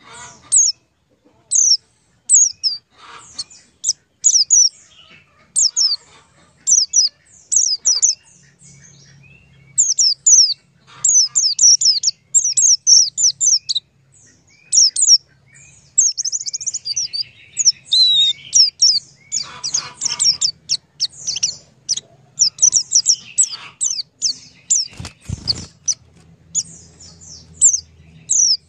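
Small birds chirping continuously: many short, high, downward-sweeping chirps in quick runs. A faint low hum comes in about a third of the way through, and there is a single thump near the end.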